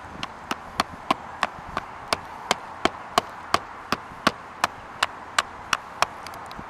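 Small sledgehammer tapping the edge of a sheet-metal roof flashing box, light metal strikes at an even pace of about three a second. It is bending the flashing edges inward and down around the mast pipe so they can be sealed with roof tar and mesh.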